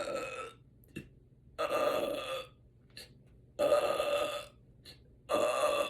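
A woman belching four times in quick succession, each burp half a second to a second long with short pauses between, bringing up gas after drinking sparkling water.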